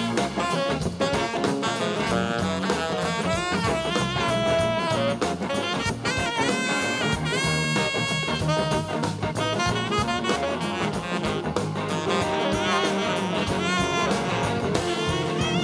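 Tenor saxophone soloing over a live rock band with drum kit: fast runs and a long held note about halfway through.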